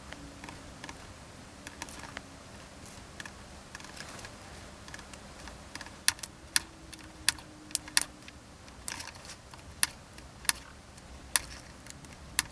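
Snap-off craft knife scoring across a 1 mm styrene strip against a steel ruler on a cutting mat: irregular sharp clicks and taps, mostly from about six seconds in.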